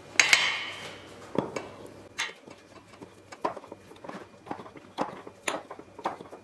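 A measuring spoon scooping flour from a glass jar and knocking against the rim of a stainless steel mixing bowl: a string of irregular light knocks and clinks, the first one ringing.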